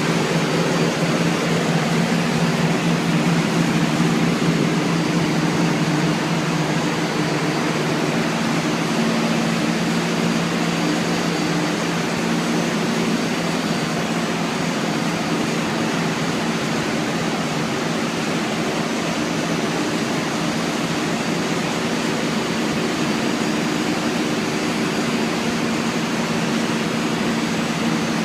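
Steady machine noise: a constant motor hum with a broad hiss over it, unchanging throughout.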